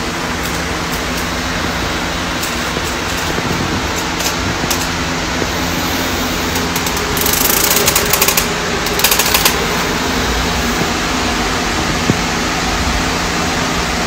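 Electric fan running with a steady whir and a low hum, with a brief patch of brighter hiss and a few crackles about halfway through.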